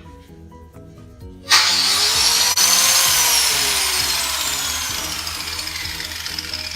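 Angle grinder switched on about a second and a half in: a sudden loud hiss with a motor whine that climbs in pitch, then sinks slowly as the grinder winds down and the noise fades.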